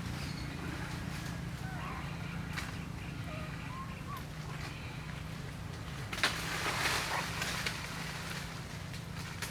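Outdoor ambience: a steady low hum, with faint short chirping calls in the first half and a louder burst of rustling noise about six seconds in.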